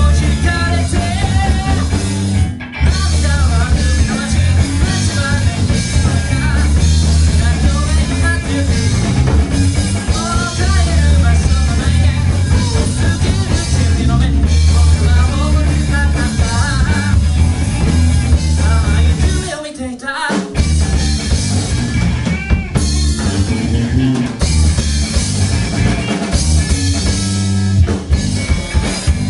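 Live rock band playing loud: electric guitar, bass and drum kit with a singer. The music breaks off for a moment about twenty seconds in and comes straight back.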